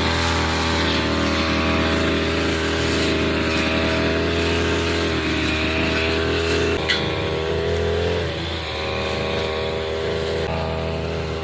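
Brush cutter with nylon trimmer line running at a steady high speed. A sharp tick comes about two-thirds of the way in, then the engine note sags and wavers as the line meets grass.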